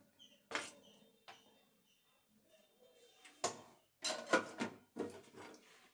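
Kitchen dishes and utensils being handled: a few separate knocks and clinks, then a quick cluster of clatter about four seconds in.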